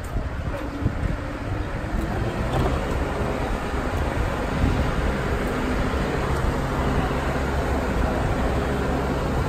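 Travel lift (mobile boat hoist) engine running steadily as it drives with a yacht slung beneath, a continuous low hum.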